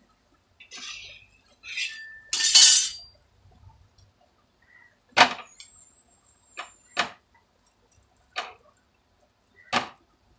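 Kitchen handling noises of plates and cookware: a scraping clatter, loudest about two and a half seconds in, then about half a dozen short, sharp clinks spread through the rest.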